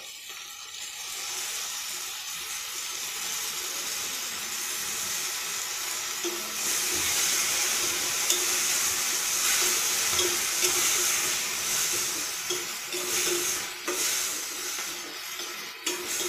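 Chopped onions, garlic and tomatoes sizzling in hot oil in a steel pan while being stirred with a metal spoon. The sizzle grows louder about six and a half seconds in.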